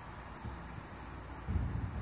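Wind rumbling on the microphone, with a stronger low gust about one and a half seconds in.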